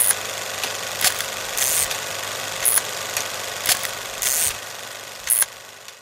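Old-film crackle sound effect: a steady hiss with a few sharp clicks and two short high swishes, fading away near the end.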